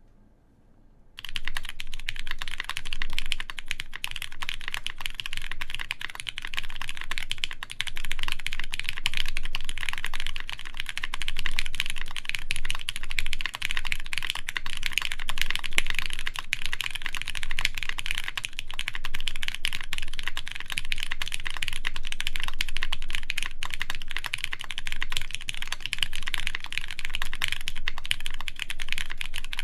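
Continuous fast typing on a Keycult No. 2 Rev. 2 mechanical keyboard with lubed Cherry MX Brown tactile switches, GMK keycaps and a full aluminium plate, starting about a second in: a dense, even stream of key clicks.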